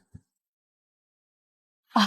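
Near silence: a dead-quiet gap between lines of dialogue, with one tiny faint tick just after the start.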